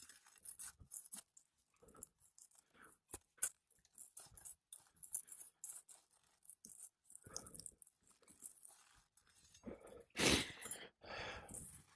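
Scattered faint scrapes and crackles of a flat bar working under brittle three-tab asphalt shingles to get at the nails. A louder scrape comes about ten seconds in.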